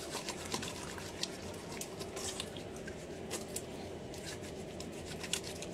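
Faint handling noise close to the microphone: scattered light clicks and rustles over a low room hum.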